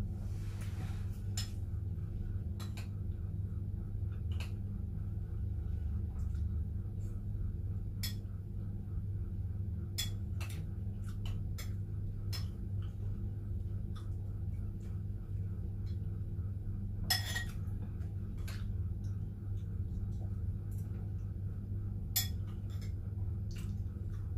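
Metal spoon clinking and scraping against a bowl of cereal and milk while eating: short sharp clinks every second or two, two louder ones near the end, over a steady low hum.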